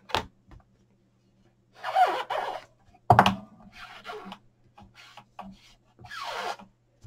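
Short rubbing and scraping strokes with a sharp click about three seconds in, as an inked rubber stamp on a clear acrylic block is wiped clean on a cloth.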